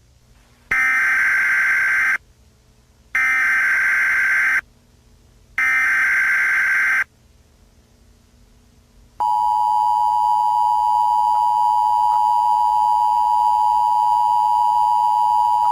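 Emergency Alert System broadcast tones: three harsh, buzzing data-header bursts, each about a second and a half long with short pauses between. About nine seconds in, the steady two-tone attention signal begins and holds, announcing a severe storm warning.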